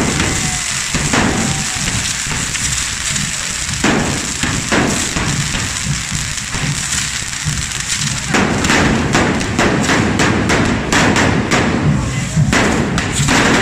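Carretilles, the hand-held spark-spraying fireworks of a ball de diables, hissing steadily, with a dense run of sharp bangs and cracks from about eight seconds in.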